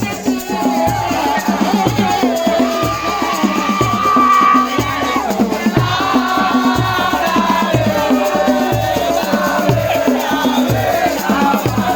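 Music with a steady bass beat, a shaker rattling along, and a wavering melody line over it.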